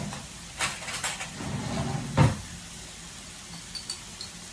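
A spoon knocking against a jar and the pan while a thick paste is scooped in, three knocks with the loudest about two seconds in, over a faint steady sizzle of frying chorizo.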